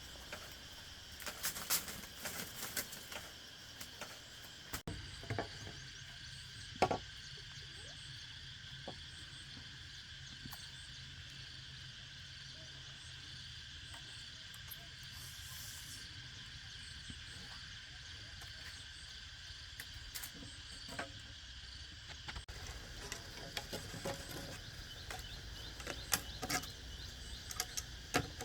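Steady chirring of an insect chorus, several high tones held without a break, with scattered light clicks and knocks that are thickest near the start and again near the end.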